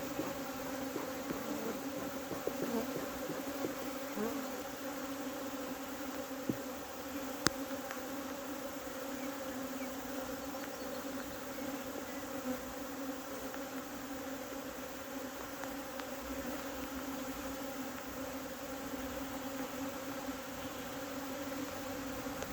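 A colony of honeybees buzzing in a steady, dense drone around an open hive during an inspection. The bees are agitated, "quite ruckusy". A single sharp click comes about seven seconds in.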